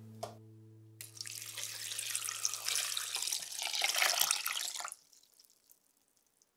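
Kitchen tap running into a sink: water starts about a second in, runs for about four seconds and is shut off.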